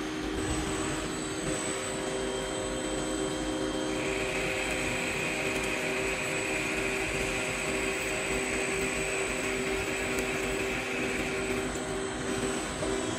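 CNC metal-cutting machines running: a steady machine hum with several whining tones, joined by a higher steady hiss from about four seconds in until near the end.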